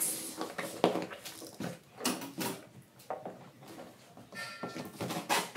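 Scissors cutting into a tape-wrapped plastic parcel: irregular snips, scrapes and rustles of the wrapping, with a brief high squeak about four and a half seconds in.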